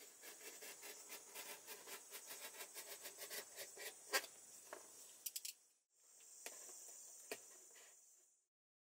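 Box cutter slicing through a corrugated cardboard box: a rapid run of short scratchy strokes, about five a second, with one louder snap about four seconds in, then a steadier hissing scrape for about two seconds.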